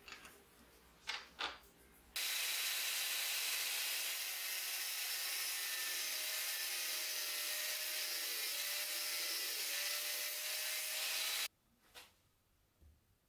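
Angle grinder with an abrasive disc grinding down the protruding steel threaded end at a knife's pommel nut. It runs steadily for about nine seconds, starting about two seconds in and cutting off abruptly near the end. It is preceded by a few sharp metal clicks of a wrench on the nut.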